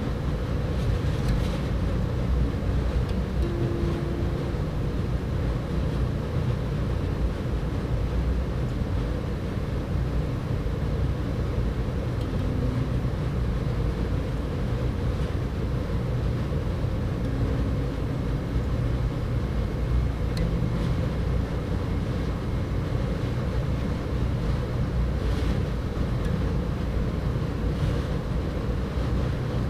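A steady low rumbling drone with no breaks, with a few faint short hums on top about 3, 12 and 18 seconds in.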